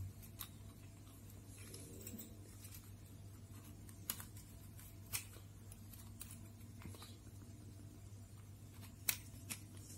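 Faint handling of an LED bulb's aluminium E27 screw base as it is fitted back onto the plastic housing: light scrapes and a few sharp clicks of metal on plastic, about 4, 5 and 9 seconds in, over a steady low hum.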